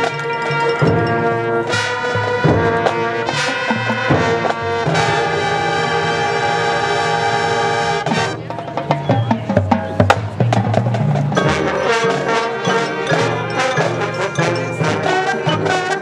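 High school marching band playing: the brass sustains full chords over drums and pit percussion, then drops back about halfway through to a quieter stretch of choppy drum and percussion hits before the brass comes in again. Picked up by a camcorder's on-board microphones.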